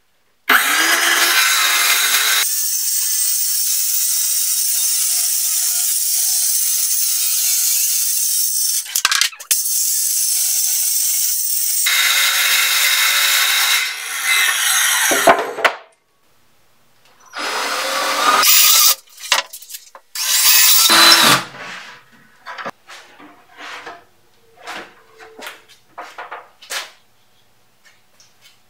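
Cordless circular saw cutting through a plywood sheet in long, steady passes, with a short break partway through and two shorter cuts after that. Light knocks and taps of the board being handled follow.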